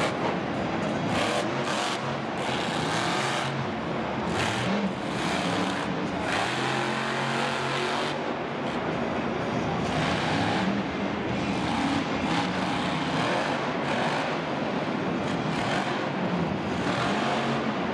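Monster truck engine running hard and revving, its pitch rising and falling as the throttle is worked.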